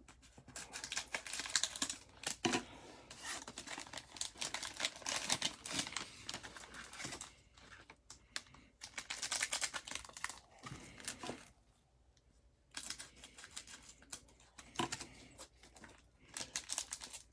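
Crinkling and crackling of a Panini Mosaic cello pack's plastic wrapper being cut open with scissors and pulled apart by gloved hands, in bursts of fast crisp crackles with short pauses between.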